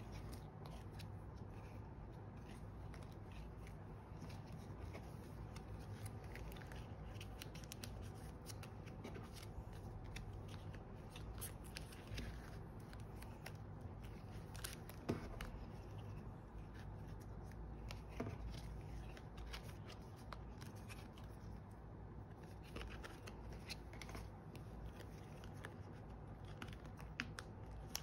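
Photocards and the plastic sleeves of a photocard binder being handled: cards tapping and sliding while they are slotted into the pockets, the plastic pages crinkling, with a few sharper clicks about halfway through. A steady low background noise runs underneath.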